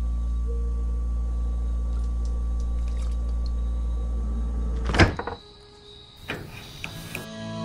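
A steady low hum, then a refrigerator door thumps shut about five seconds in, and the hum cuts off.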